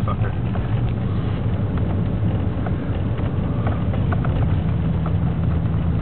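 Road noise inside a moving car's cabin on a snow-covered highway: a steady low rumble of engine and tyres, with faint scattered clicks.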